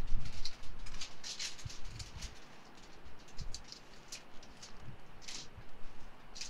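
Aluminium foil crinkling in quick, scratchy bursts as it is folded and pressed around bread dough on a campfire grate, with a low wind rumble on the microphone.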